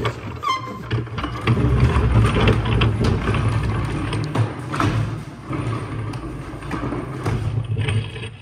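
Wooden extension table's telescoping slide runners rumbling and clattering as the table is pulled out to full length, with a short rising squeak about half a second in.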